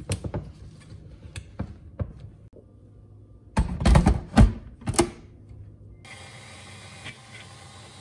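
Plastic clicks and clunks of a Ninja blender's single-serve cup being handled: light clicks as the blade lid is twisted on, then a burst of loud knocks about four seconds in as the cup is seated and locked onto the motor base. From about six seconds in, a faint steady hum follows.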